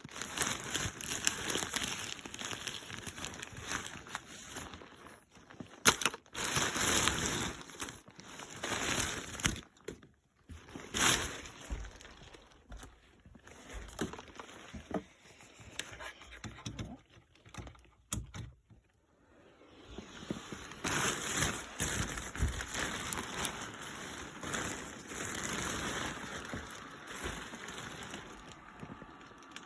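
Packaging being handled and unwrapped: irregular bursts of rustling and crinkling with a few sharp knocks, and a quiet stretch a little past halfway.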